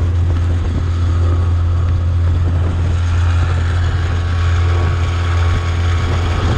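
Small boat's outboard motor running steadily as the boat travels, a constant low drone under the rush of water and wind.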